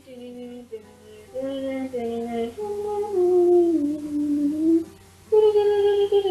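A woman humming a slow melody in short phrases, the notes held and gliding between pitches, with a brief pause about five seconds in.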